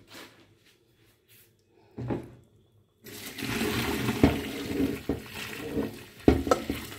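Hot cooking water poured from a pot through a stainless-steel mesh strainer into a metal sink, splashing steadily from about three seconds in, with a few sharp knocks. This is the salted parboiling water being drained off the makoso meat.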